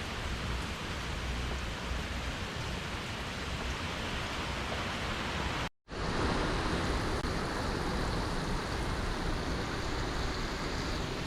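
Steady rushing noise of hurricane-force wind and rain. It cuts out completely for a moment about halfway, then resumes with a slightly brighter hiss.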